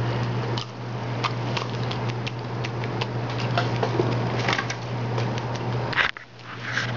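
Dog's wet lip-smacking and tongue clicks, a quick irregular run of small clicks, as it works at peanut butter stuck to the roof of its mouth.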